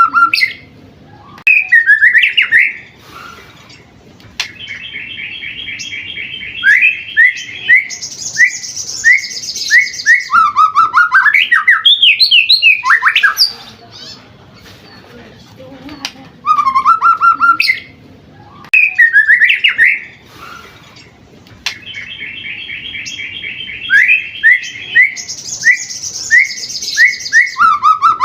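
A seven-month-old white-rumped shama (murai batu) singing loudly and continuously: short whistled phrases, then long fast trills and high rattling runs, with the same sequence of phrases coming round again about halfway through.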